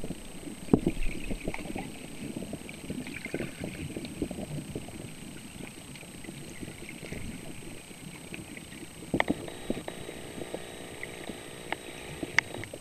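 Muffled underwater noise picked up by a camera in a waterproof housing: an uneven low rumble of moving water, with a few sharp knocks on the housing about a second in and twice near the end, and a faint hum in the last few seconds.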